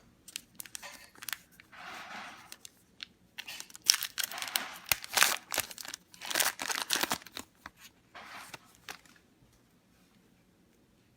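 Foil trading-card pack wrapper being torn open and crinkled, a run of sharp crackling tears loudest from about four to seven seconds in, dying away before the end.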